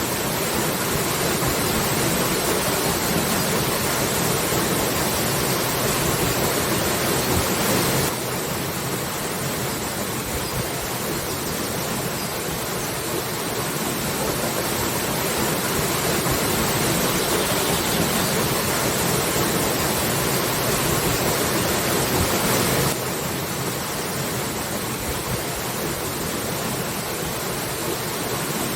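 Waterfall: a steady rush of falling water, its level stepping down abruptly about eight seconds in and again near the end.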